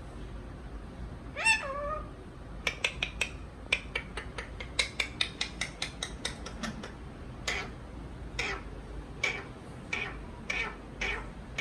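Ringneck parakeet calling: one drawn-out, wavering call about a second and a half in, then a quick run of short, sharp chirps, then slower, separate screeches spaced under a second apart toward the end.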